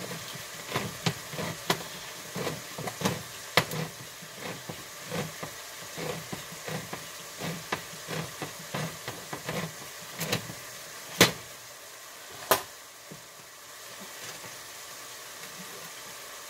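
Can opener cutting around a can of pumpkin puree: a long run of short clicks, then two louder sharp clicks about eleven and twelve and a half seconds in, with a pan of sausage and vegetables sizzling steadily underneath.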